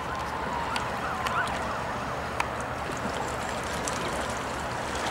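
Steady outdoor background noise of wind and water. In the first two seconds a faint tone rises and falls about three times a second, like a distant siren, and there are a few faint ticks.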